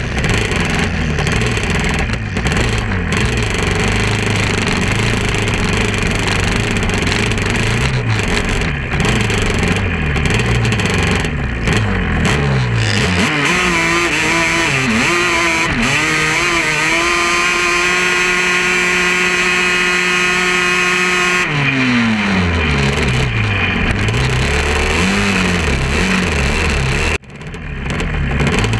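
Quad (ATV) engines revving hard, rising and falling in pitch. Around the middle, one engine holds a high, steady pitch for about eight seconds, then its revs drop away. The sound dips briefly near the end.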